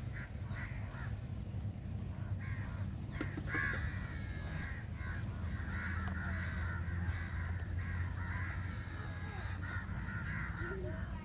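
Birds calling over and over in short calls, with a steady low hum underneath.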